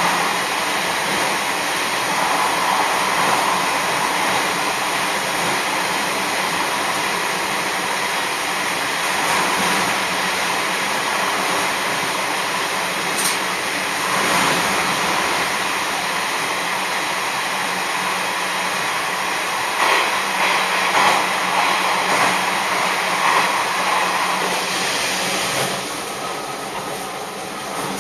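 Sanriku Railway diesel railcar running through a tunnel, heard from inside the car: a steady, loud noise of engine and wheels on rail. About two seconds before the end the level drops as the train comes out of the tunnel.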